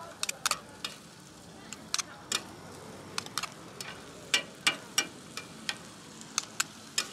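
Metal spatulas clinking and scraping on a steel flat-top griddle as corn and melted cheese are tossed and folded, in irregular sharp clinks over a faint sizzle.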